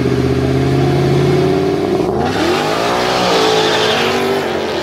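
Loud car engine running at steady revs, then revving up about two seconds in and holding the higher revs before easing back slightly near the end.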